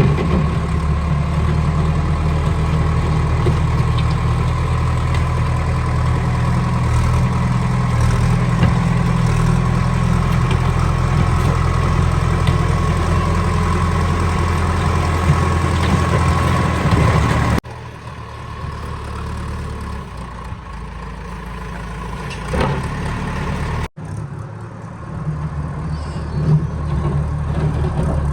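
JCB 3DX backhoe loader's diesel engine running steadily. It drops abruptly to a quieter level about two-thirds of the way through, breaks off for an instant a few seconds later, then grows louder again near the end.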